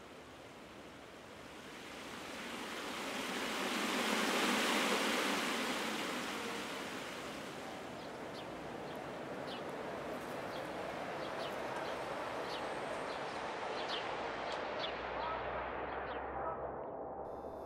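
A steady rushing noise with no clear pitch swells to its loudest about four to five seconds in, then holds steadier, with scattered short high ticks in its middle part. Near the end it grows duller and dies down.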